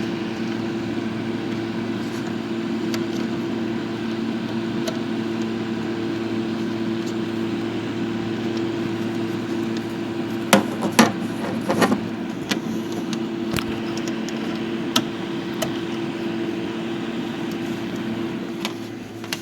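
Steady mechanical hum of running bench equipment, with several sharp clicks and knocks a little past halfway as BNC cable connectors are handled and attached. The hum drops off just before the end.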